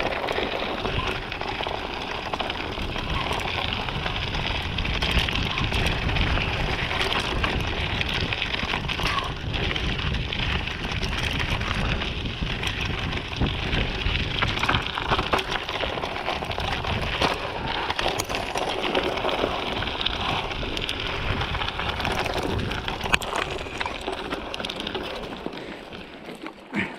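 Mountain bike rolling fast down a rough dirt singletrack: a continuous crunching of tyres over gravel and stones with small rattles and clicks from the bike, over a low rumble. It quiets about two seconds before the end.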